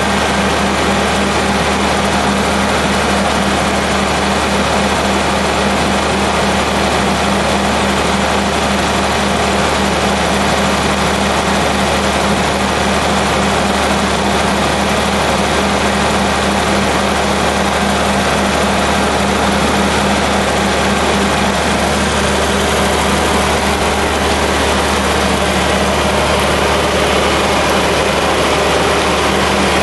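John Deere 4230 tractor's six-cylinder diesel engine running steadily, a continuous mechanical rumble with a steady low hum.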